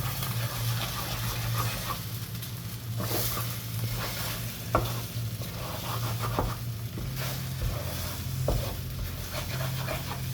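Scrambled eggs with ham, onion and peppers sizzling in a frying pan while a utensil stirs them, with sharp clicks of the utensil against the pan now and then. A steady low hum runs underneath.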